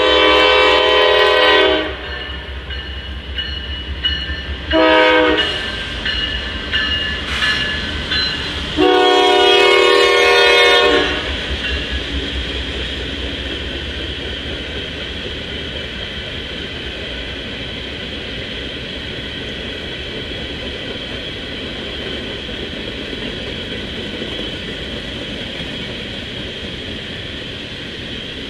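Horn of a Norfolk Southern GE Dash 9-44CW freight locomotive blowing for a grade crossing: a long blast, a short one about five seconds in, and another long blast about nine seconds in. It is followed by the steady rumble and clatter of a grain train's covered hopper cars rolling past.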